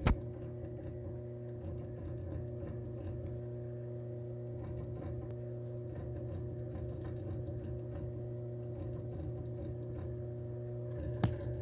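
Brand-new WD Purple 8TB hard drive running with a constant, very loud drone like a loud fan: a steady low hum with several fixed tones above it, which the owner considers a defect. A single sharp click sounds near the end.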